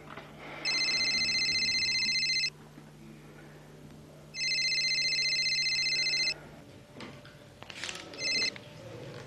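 Telephone ringing with an electronic ring tone: two long rings about two seconds each, then a third ring cut short as the call is picked up, with handling clicks and rustling.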